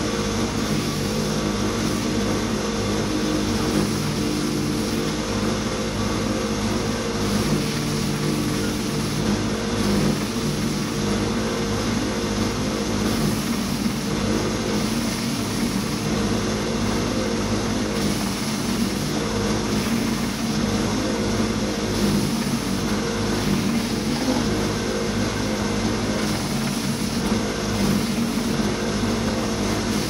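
Stationary belt sander running steadily while an OSB panel is held against the moving belt: a constant motor hum under a continuous sanding hiss.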